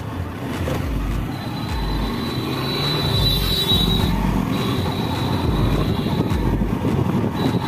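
Wind buffeting the microphone over motorcycle engine and road noise while riding at steady speed, with repeated low thumps from the wind. A faint high whine sounds from about a second in to about four and a half seconds in.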